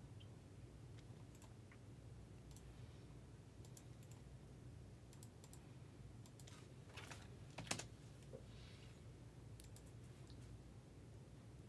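Faint, scattered clicks of a computer keyboard and mouse, with a louder short clatter of clicks a little past the middle, over a low steady hum.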